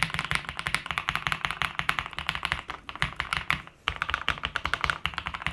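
Fast typing on a Kisnt 75% mechanical keyboard, a quick run of key clicks with a short pause about four seconds in. The keys have a silicone/foam layer under them, giving a solid, not loose sound without a hollow clack.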